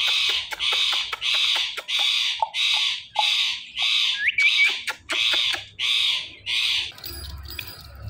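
Indian ringneck parrot making a rapid run of raspy kissing sounds, about two a second, as a man puckers his lips at it, with a couple of short rising chirps about four seconds in. The kissing stops about seven seconds in.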